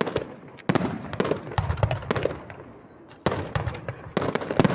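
Fireworks going off: a rapid run of sharp bangs and crackling reports, coming in clusters of several a second with short lulls between.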